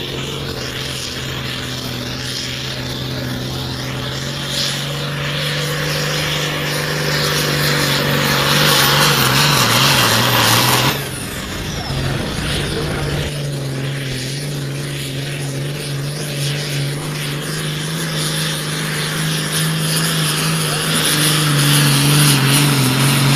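Diesel pulling tractors under full load hauling a weight-transfer sled, engines running hard with a steady drone that climbs in pitch and loudness as each pull goes on. About eleven seconds in, the sound cuts abruptly to another tractor's pull, which builds again toward the end.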